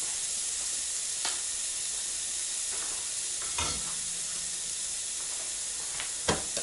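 A T-bone steak sizzling on the hot plate of a Philips Indoor Smokeless Grill that has just been switched off, a steady hiss broken by three light knocks about a second in, midway and near the end.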